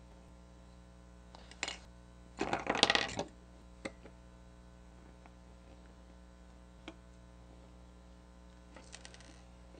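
Handling noises from a small plastic electronics case being taken apart with a screwdriver: scattered sharp clicks, with a short clattering rattle about two and a half seconds in.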